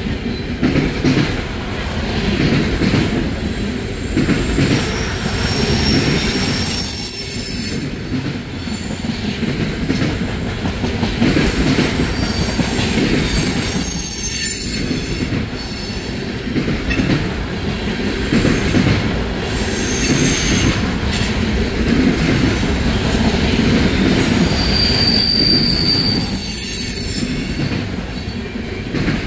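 Freight cars loaded with trash containers rolling past: a steady rumble of steel wheels on the rails, with brief high-pitched wheel squeals three times.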